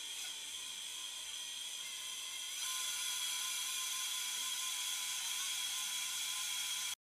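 Powered surgical wire driver spinning a 2.5 mm K-wire into a synthetic tibia bone model with a steady high-pitched whir. It gets louder about two and a half seconds in and stops abruptly near the end.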